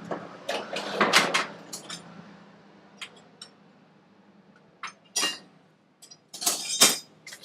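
Steel hand tools clinking and clattering as they are handled. There are sharp clanks in a cluster about a second in and again near the end, with lighter single clicks between.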